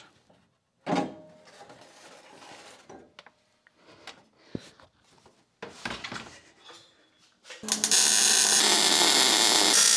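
Quiet knocks and rubbing as a fuel cell is lifted out of its steel mounting cage. About seven and a half seconds in, a MIG welder's arc starts and runs on with a steady loud crackle and hum, welding the cage crossbars to the car's frame rails.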